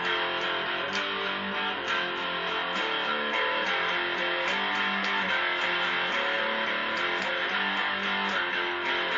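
Electric guitar being played without a break: picked notes and strummed chords.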